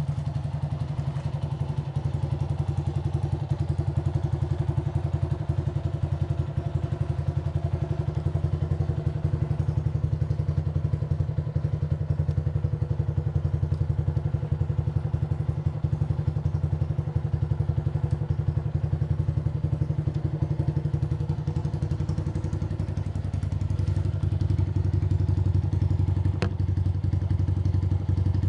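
2002 Honda CG Titan 125's single-cylinder four-stroke engine idling through an aftermarket Aluminium RS exhaust, a steady low run of rapid exhaust pulses. It grows a little louder about two-thirds of the way through, and a single sharp click comes near the end.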